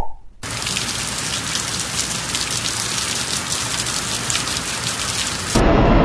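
Rain sound effect: a steady hiss of pattering rain, starting about half a second in after the last of a row of pops. It cuts off suddenly near the end, where a louder, deeper rushing reveal sound effect begins.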